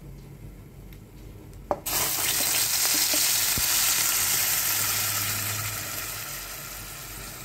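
Wet ground onion, tomato, ginger and garlic paste hitting hot oil in a pan: after a sharp click it starts sizzling suddenly about two seconds in, a loud hiss that slowly dies down as the paste is scraped in.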